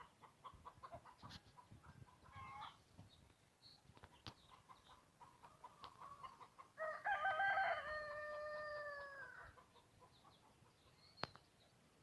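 Chickens clucking in quick repeated notes, then a rooster crows once about seven seconds in, a long call that wavers at first, holds, and trails off. A single sharp click near the end.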